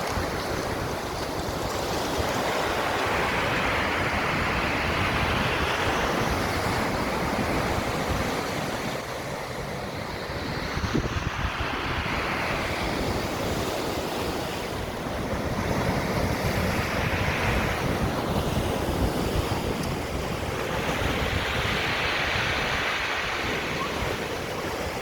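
Black Sea surf breaking on the shore, the hiss of each wave swelling and fading about every five or six seconds, with wind rumbling on the microphone.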